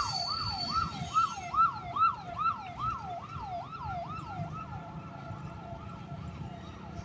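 A siren in a fast yelp, each call dropping in pitch, about two and a half calls a second, growing fainter through the second half. A low rumble runs underneath.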